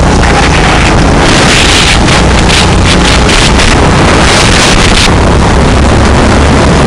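Go-kart engine running under way, heard from a camera mounted on the kart, with heavy wind buffeting on the microphone. Very loud and distorted.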